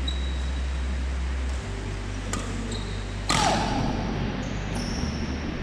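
Badminton rally: sharp racket hits on the shuttlecock, the loudest about three seconds in, ringing on in the hall, and short high squeaks of shoes on the wooden court floor. A steady low hum runs underneath.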